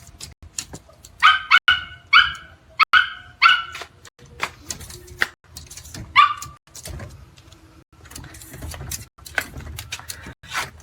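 A dog yipping: four short high-pitched yips in quick succession, then one more a few seconds later, with scattered light knocks and clicks.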